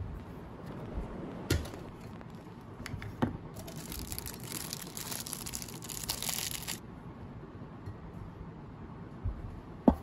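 Plastic packaging being crinkled and torn open for about three seconds in the middle, with a few light knocks before and after.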